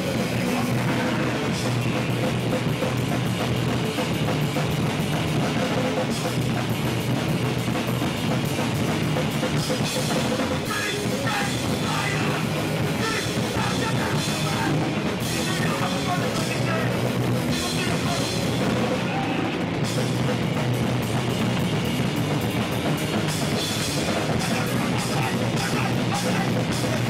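Hardcore punk band playing live and loud: distorted electric guitars and a pounding drum kit, with a singer shouting into a microphone.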